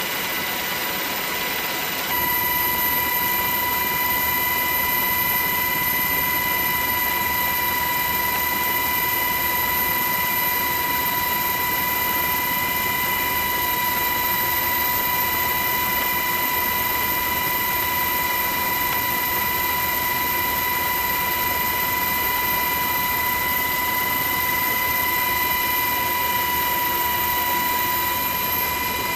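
Steady engine drone and high whine of an aircraft, heard from inside its cabin. It steps up slightly about two seconds in, then holds steady.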